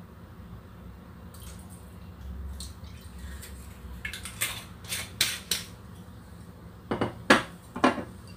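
Bottles and kitchenware being handled on a kitchen countertop: a quiet stretch, then a run of light clinks about halfway through and a few louder knocks near the end.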